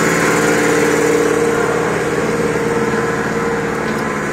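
A motor or engine running steadily at constant speed: a loud, even hum with several fixed pitches.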